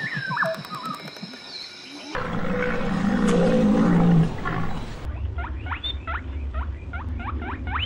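Animal calls in three parts: a few sliding whistle-like calls, then about two seconds in a loud, rough, low call lasting a couple of seconds, then a run of quick sweeping chirps, about three a second.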